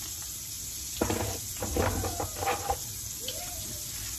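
Sausages sizzling in a frying pan, a steady hiss. Between about one and three seconds in there are a few short knocks and clatters as seasoning containers are handled.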